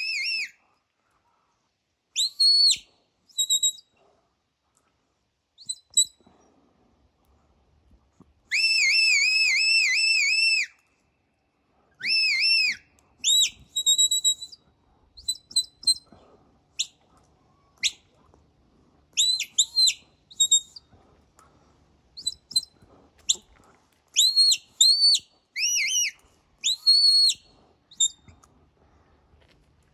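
Sheepdog handler's whistle giving commands to a herding dog working sheep: a series of short rising-and-falling whistle notes, with a longer warbling run of repeated arched notes about nine seconds in.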